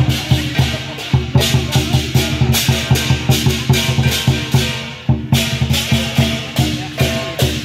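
Lion dance percussion: a large Chinese lion-dance drum beaten in a fast, driving rhythm with clashing cymbals, about four strikes a second, with a brief lull about five seconds in.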